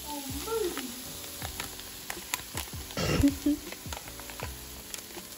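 Ground ostrich meat sizzling in a nonstick frying pan, with scattered sharp pops and a louder burst of noise about three seconds in.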